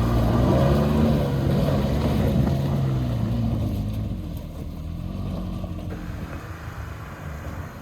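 Off-road 4x4's engine running steadily under throttle as the vehicle works up a rutted trail obstacle, then easing off and fading after about four seconds.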